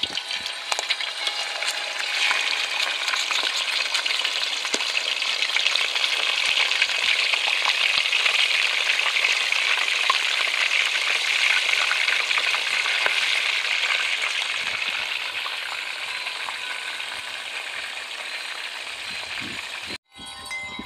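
Whole tilapia frying in hot oil: a dense crackling sizzle that swells over the first couple of seconds as the fish goes in, then slowly eases off before cutting out abruptly near the end.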